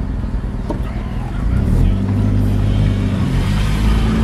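Vehicle engine and road noise heard from inside the cabin while driving, a steady low hum that grows louder about a second and a half in as the vehicle speeds up.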